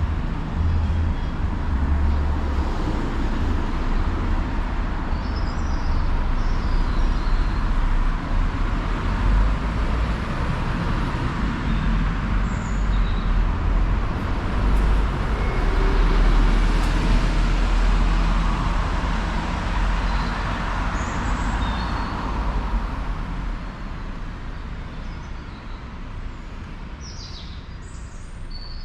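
Road traffic passing close by, a steady rumble that swells about halfway through and fades over the last few seconds. A few short bird chirps sound above it.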